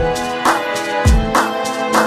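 Instrumental music with a steady drum beat: deep drum hits recur at a regular pace under sustained melodic notes.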